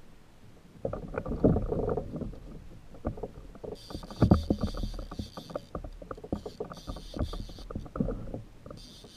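Fishing reel being cranked on a kayak: a rapid run of small clicks and knocks, with a heavier thump about four seconds in and a few bursts of high-pitched buzzing.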